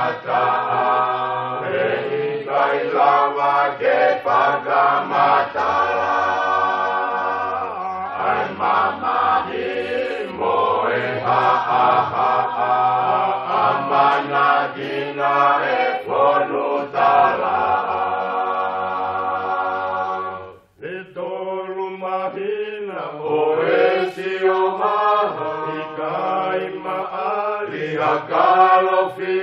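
Several voices singing a slow, chant-like song together over a steady low accompaniment. The sound cuts out for a moment about twenty seconds in, then the singing picks up again.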